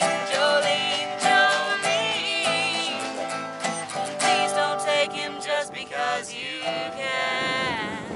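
Small acoustic group playing an Americana song on archtop and resonator guitars, with plucked and strummed chords under singing. Near the end a held, wavering sung note glides down and the song ends.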